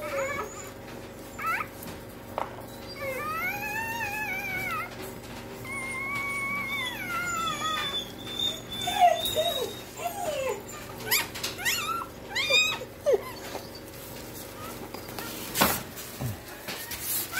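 Husky whining: a long wavering call about three seconds in and a long held one around six seconds, followed by a run of short falling squeaks. A sharp knock comes near the end.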